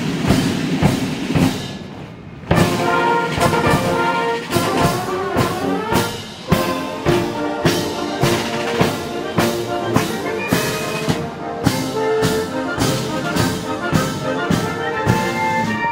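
Military marching band in bearskins: the drums beat time alone at first, then about two and a half seconds in the brass (trumpets, trombones, saxophones) strike up a march over a steady bass and snare drum beat.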